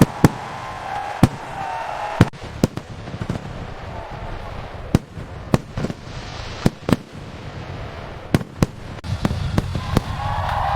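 Fireworks bursting overhead: a string of sharp bangs at irregular intervals, some close together in quick pairs, over a steady background rumble.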